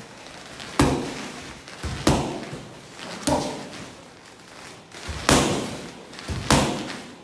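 Boxing gloves punching Fairtex focus mitts, five sharp smacks a second or two apart as punch combinations land on the pads.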